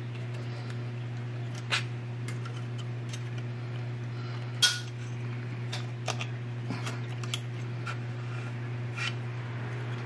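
Small metallic clicks and taps of a spring clip and lock cylinder being worked by hand on a Chevy Silverado door handle assembly, scattered and irregular, the sharpest about halfway through. A steady low hum lies underneath.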